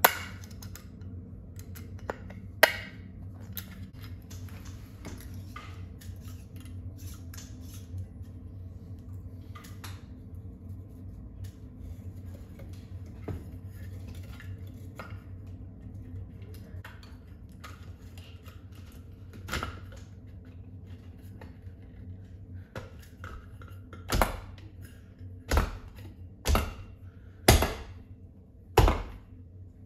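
An LED retrofit recessed-light trim and its metal spring clips being handled and pushed up into a ceiling can, with scattered small clicks. Near the end come about six sharp knocks, roughly a second apart, as the trim is pushed hard up toward flush against the ceiling.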